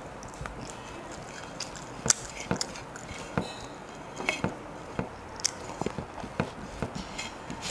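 Eating by hand: fingers mixing and scooping rice and curry on a plate, along with chewing, heard as irregular sharp wet clicks and smacks over a steady hiss.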